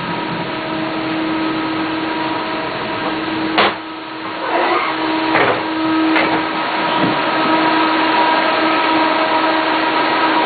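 Running machinery of a 1987 Leitner six-seat gondola lift heard from inside a cabin: a steady whirring hum with a held tone. A sharp clunk comes about three and a half seconds in, followed by a few rattles and a click.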